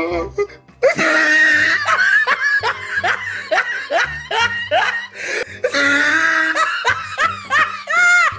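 Hearty laughter in long runs of short rising "ha"s, starting about a second in, over background music with a low beat.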